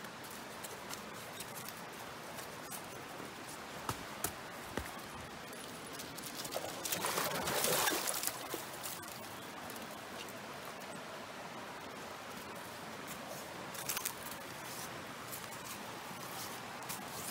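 Mountain stream running with a steady rush, dotted with light clicks and rustles, and a louder noisy rustling surge about seven seconds in that lasts some two seconds.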